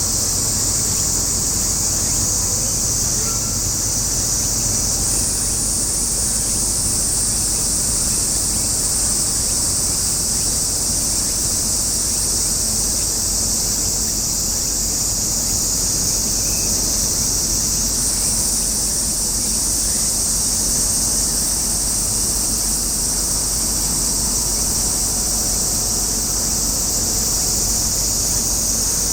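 Dense, steady chorus of cicadas, a loud high-pitched hiss, over a low steady rumble.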